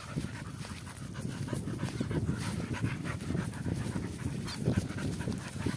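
Dogs panting quickly, tired out from a walk on leads.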